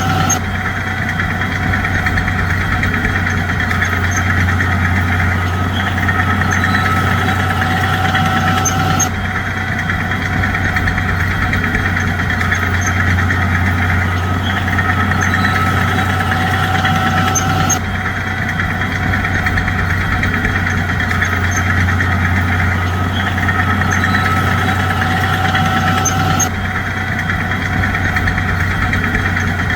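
Bulldozer's diesel engine running steadily with a low, even hum, its sound shifting abruptly about every nine seconds in near-identical stretches.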